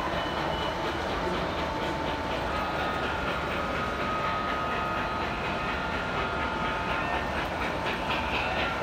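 O scale two-rail model steam locomotive and freight train running along the layout, making a steady train sound.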